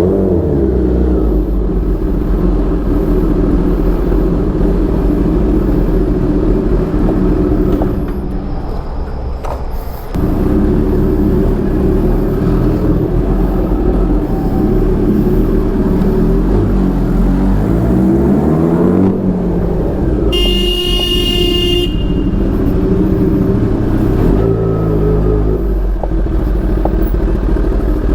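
Kawasaki Ninja ZX-10R's inline-four engine running under way, easing off for about two seconds around eight seconds in, then revs rising and falling. A vehicle horn sounds for about two seconds about two-thirds of the way through.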